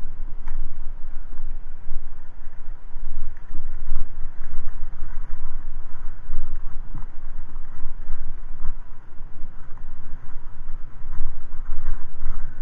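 Wind buffeting the camera's microphone as it moves: a loud, uneven low rumble with no engine tone in it.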